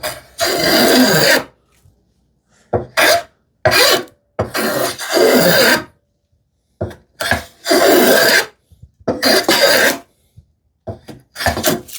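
Hand plane taking shavings off a thin strip of wood, shaping a bevel: a series of rasping strokes, each up to about a second and a half long, with short pauses between.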